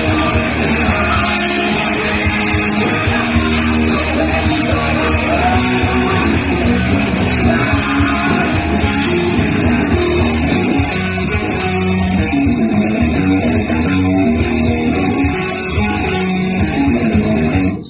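Rock music led by guitar, played continuously at a steady loud level.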